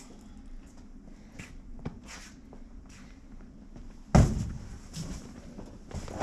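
Scattered light knocks and clicks, then a single loud bang about four seconds in that dies away over about half a second.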